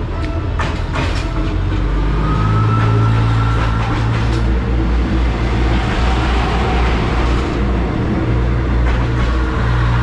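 PNR INKA 8000-class diesel multiple unit passing close by, its diesel engine running with a steady low drone that grows louder over the first few seconds, with a few sharp clicks from the running gear in the first second or so.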